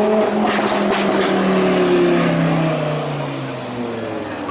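Lamborghini Huracán LP610-4's V10 engine through a very loud exhaust system, running at a steady high note with a few sharp crackles about half a second in. The note then slowly falls in pitch and fades.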